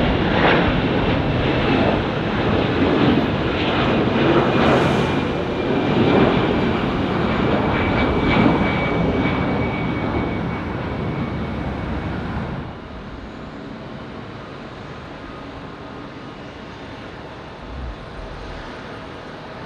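Jet airliner engines at takeoff power as it climbs away: loud, steady engine noise that cuts off abruptly about two-thirds of the way through. After that comes a much quieter, steady jet engine sound from an Airbus A321neo sitting on the runway.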